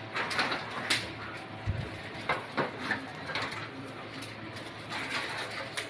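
Irregular light clicks and taps from handling a curtain on an overhead curtain rod, with a louder knock right at the end.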